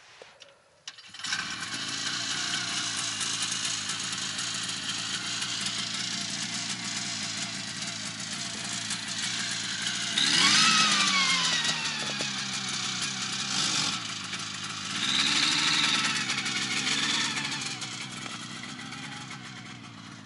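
Snowmobile engine starting about a second in and running. It revs up briefly about ten seconds in, with the pitch falling away afterwards, and swells again around fifteen seconds.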